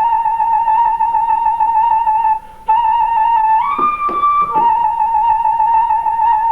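Instrumental music: a single melody instrument holding long, steady notes, dropping out briefly about two and a half seconds in, then stepping up to a higher note for about a second before coming back down.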